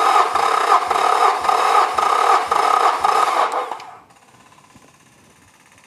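Electric starter cranking a Yamaha F225 V6 four-stroke outboard with its spark plugs out and fuel injection disabled for a compression test: a steady whirring with a regular pulse about twice a second as the tested cylinder compresses into the gauge. The cranking stops about three and a half seconds in.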